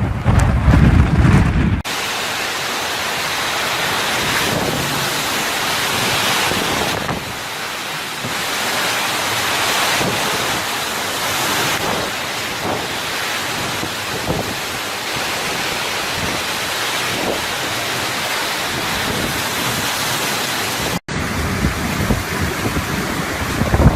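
Hurricane wind and driving rain: a steady heavy hiss of rain and wind, with gusts buffeting the microphone in the first two seconds and again after a cut near the end.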